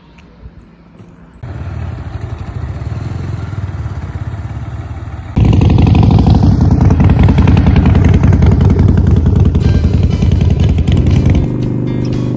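Harley-Davidson Sportster Forty-Eight's air-cooled 1200 cc V-twin engine comes in steady about a second and a half in. About four seconds later it becomes much louder and rises in pitch as it revs.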